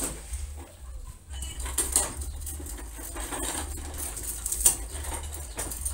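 A large MDF sheet being laid on a work table and pushed into place: a few sharp knocks with scraping between them, the sharpest about two seconds in and again near five seconds.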